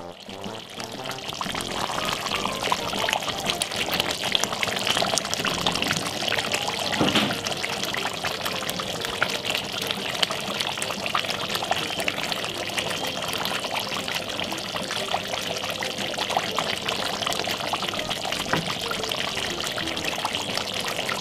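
Pot of curry chicken simmering, its thick sauce bubbling with a steady crackle of small pops.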